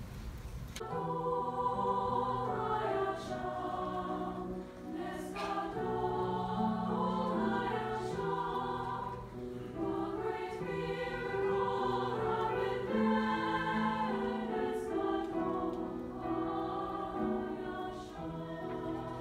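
Mixed glee-club choir singing a piece in several vocal parts, the voices coming in fuller about a second in.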